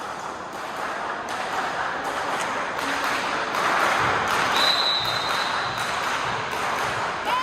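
Crowd noise in a sports hall during a volleyball rally, swelling about four seconds in, with scattered thuds of the ball and players' feet on the court.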